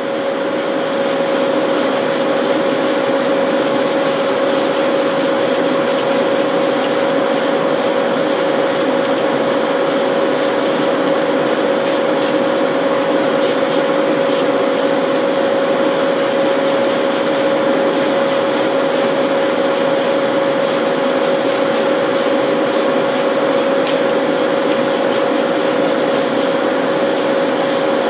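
Spray booth fans running with a steady hum, and an aerosol spray-paint can hissing in repeated short bursts as blue paint is sprayed onto a model truck body.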